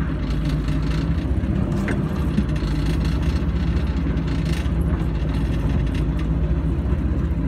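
Willys Jeep's Go-Devil four-cylinder flathead engine running steadily under load in first gear, pulling the Jeep up a snowy hill in two-wheel drive.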